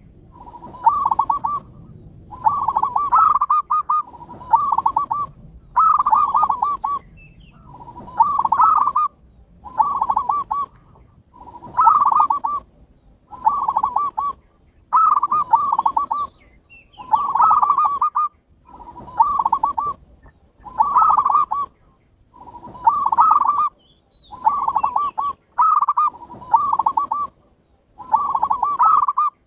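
Zebra dove (perkutut) singing: a loud, rhythmic string of cooing phrases. Each phrase is a short opening note followed by a quick rolling run of coos, and a new phrase comes roughly every two seconds.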